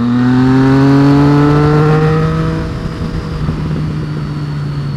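2013 Triumph Street Triple R's 675 cc three-cylinder engine accelerating under throttle, its pitch rising for about two and a half seconds. It then drops in loudness and settles to a steadier, quieter run.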